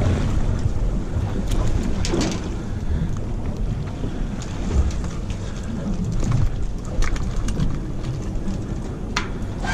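Wind rumbling on the microphone on an open boat deck, with a few sharp clicks and knocks as a lure is worked out of a freshly caught false albacore's mouth.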